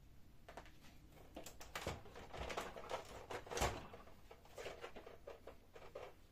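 Faint clicks and knocks of plastic parts as the copier's side door is unlatched and lifted away, with one louder knock about three and a half seconds in.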